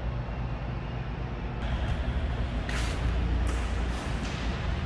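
Steady low rumble of industrial background noise, with several short hissing bursts between about three and four and a half seconds in.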